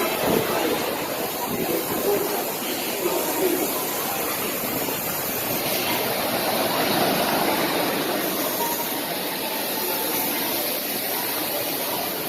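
Roller coaster train rolling along its track: a steady rushing noise of wheels on rail, with faint voices of riders.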